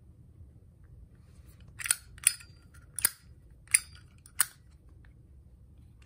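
Copper-cased Zippo lighter's hinged lid being flicked open and snapped shut repeatedly: five sharp metallic clicks, the first about two seconds in, then roughly two-thirds of a second apart.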